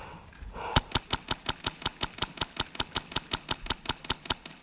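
Airsoft gun firing a rapid, evenly spaced string of about twenty shots, nearly six a second, starting just under a second in.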